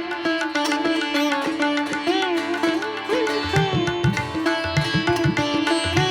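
Background music: a plucked-string melody with bending notes over a steady drone, with low hand-drum strokes joining about three and a half seconds in.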